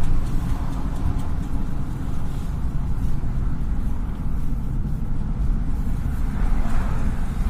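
Toyota RAV4 on the move: a steady low rumble of running gear and tyre noise. It was recorded to catch an unexplained noise from the front left wheel, which the owner connects with the brakes or ABS.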